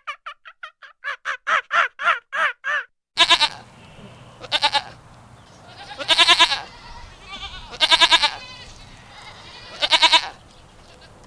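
A quick run of short, high squeaky calls lasts about three seconds. Then a goat bleats loudly five times, roughly every two seconds, each bleat quavering, over a low steady background noise.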